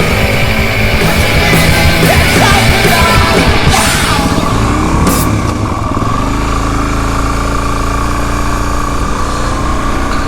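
Loud rock music that gives way about halfway through to a motorcycle engine running at a steady speed, a Suzuki DR-Z400 dual-sport bike's single-cylinder engine.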